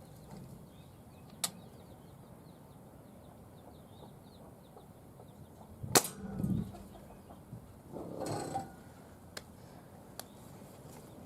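A single pellet gun shot about six seconds in: one sharp crack, the loudest sound here. Before it come a small click and faint high bird chirping, and after it some brief rustling.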